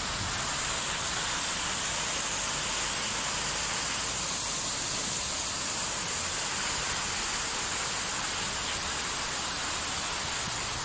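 Water of the Fontana dell'Acqua Paola, a large marble monumental fountain, pouring from its spouts and splashing into its basin: a steady rushing splash.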